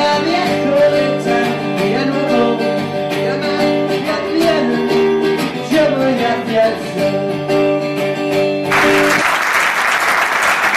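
A man singing and strumming an acoustic guitar. The song ends about nine seconds in and the audience breaks into applause.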